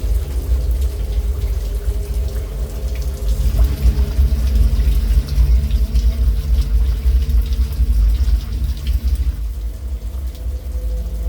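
Rain falling steadily, with scattered sharp drop ticks over a heavy low rumble.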